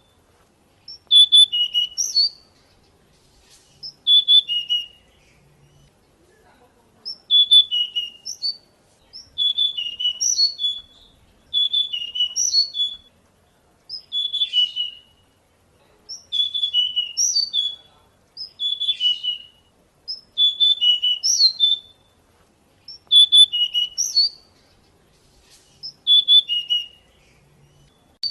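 A pied bushchat (decu) singing: short, quick whistled song phrases, each about a second long, repeated roughly every two to three seconds.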